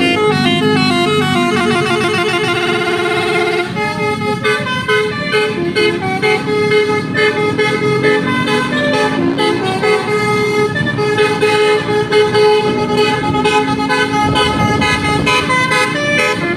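Telolet horn, a multi-tone vehicle horn, playing a loud melody. It starts with a fast run of stepping notes, then switches at about four seconds to a pulsing, rhythmic phrase.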